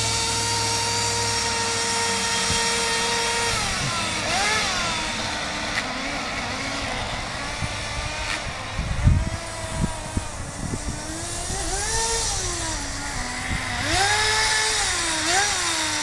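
Kyosho Nitro Blizzard RC tracked vehicle's .11 nitro engine running at a steady high pitch for about three and a half seconds, then revving up and down again and again as the throttle is worked. A few low thumps come about halfway through.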